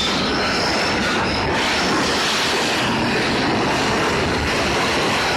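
Train running along the rails: a loud, steady rumble of wheels on track, with brief high-pitched wheel squeals in the first couple of seconds.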